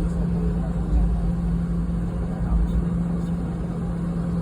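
Cabin noise of a Boeing 717-200 airliner: a steady drone from its rear-mounted Rolls-Royce BR715 turbofan engines, an even hum over a low rumble.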